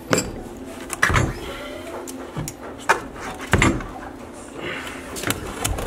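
Scattered sharp clicks and knocks of hands handling and twisting a plumbing fitting on a pipe stub.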